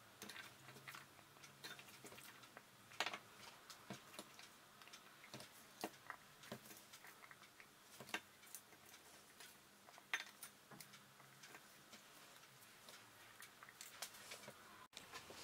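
Near silence with faint, irregular small clicks and taps from hands placing sliced garlic into roasted red peppers on a metal tray.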